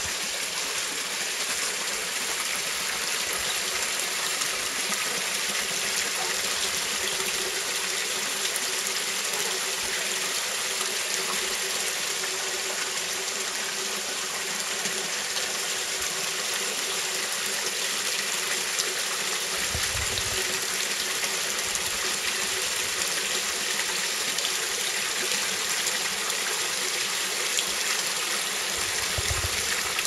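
Spring water pouring steadily from two pipe spouts and splashing into a shallow rocky pool: a continuous even rush. Two brief low thumps sound about two-thirds of the way through and again near the end.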